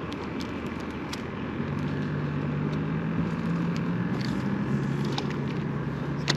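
A low, steady engine hum comes in about a second and a half in and holds, over an even outdoor hiss with scattered light clicks.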